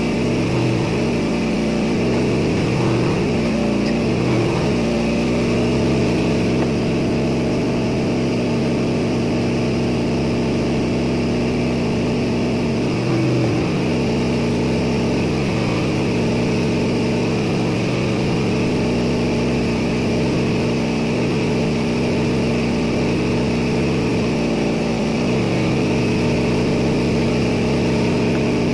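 Steady drone of ship engine-room machinery running, a constant hum with several steady tones over a broad mechanical noise.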